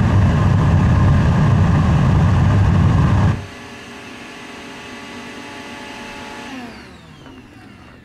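Gas-fired homemade drum blast furnace running with a loud jet-engine sound, which cuts off suddenly a little over three seconds in. A quieter whine from the air blower carries on and then winds down, its pitch falling, near the end.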